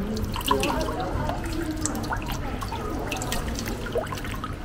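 Water poured from a small metal bowl over a little Buddha statue, splashing and dripping into a glazed ceramic basin, with many small scattered drips and splashes.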